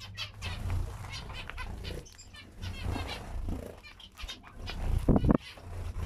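Zebra finches giving short repeated calls while feeding, with sharp clicks of beaks in seed close by. About five seconds in a bird flaps its wings right against the microphone in a loud brief rush.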